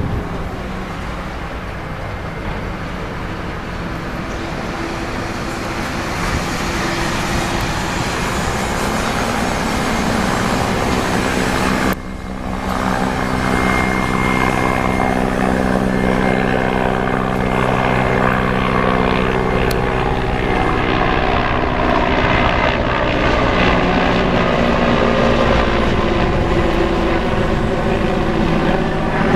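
Mil Mi-8-type helicopter flying in and passing close overhead: a steady rotor thrum with engine whine that grows louder as it approaches. There is a brief dip about twelve seconds in, and its tones sink slightly in pitch near the end as it passes.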